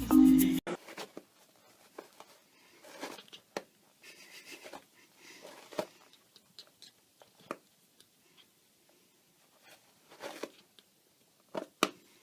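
A brief burst of music cuts off at the start, then scattered light taps, scratches and rustles in a small room, with two sharper taps near the end.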